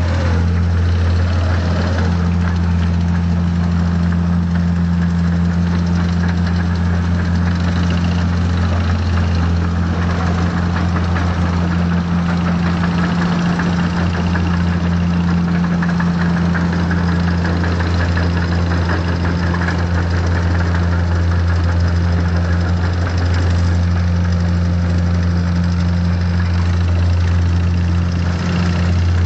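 Heavy diesel engine of farm machinery running steadily at a constant speed, a low even drone.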